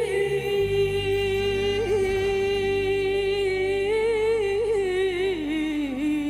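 A singer holding one long, wavering note that slides down a step near the end, over a low sustained musical backing.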